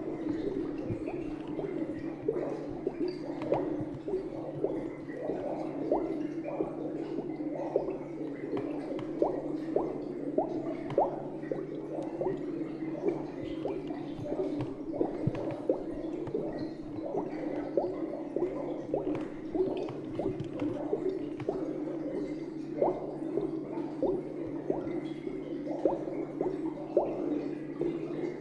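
Fermenting wine bubbling: carbon dioxide gurgling through water-filled airlocks in small, irregular pops, over a steady low hum.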